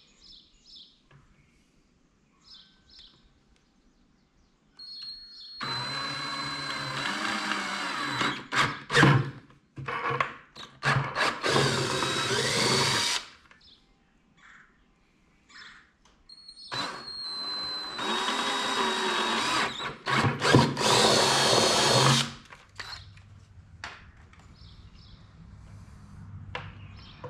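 Cordless drill with a 31/64-inch bit boring two holes through the side of a plastic 5-gallon bucket, one run about six seconds in and the second about five seconds later, each stopping and starting a few times as the bit cuts through.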